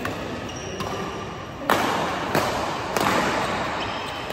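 Badminton rally: racket strings hitting the shuttlecock three times in quick succession, about two-thirds of a second apart, each hit ringing in the hall. Between the hits come fainter clicks and short squeaks of shoes on the court floor.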